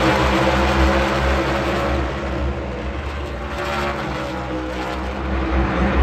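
NASCAR Cup Series race cars' V8 engines running at speed as the cars pass on the track, loud at first and fading after about two seconds as they pull away.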